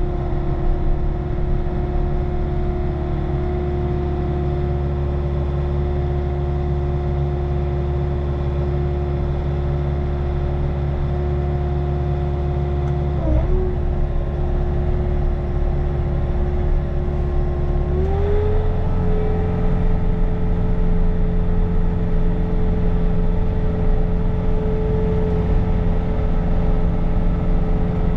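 Bobcat T66 compact track loader's diesel engine running steadily while working its snow blower attachment, heard from inside the cab. The engine note dips for a moment about 13 seconds in, then rises to a higher steady speed about 18 seconds in.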